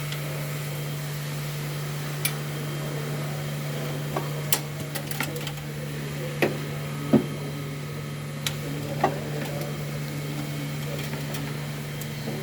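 A steady low mechanical hum, with scattered light clicks and knocks from work on the engine bay.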